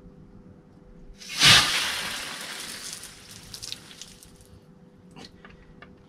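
A water-filled steel air tank held at about 350 psi is let down as its valve is opened. About a second in there is a sudden loud hiss and spray that fades away over about two and a half seconds. A few small clicks follow.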